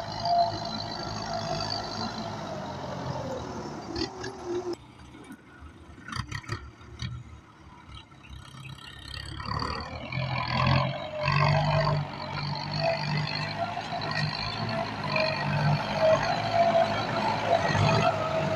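Kubota M9540 tractor's four-cylinder diesel engine running under load with a steady high whine over it. The engine sound drops away for a few seconds in the middle, with scattered knocks, then rises strongly again.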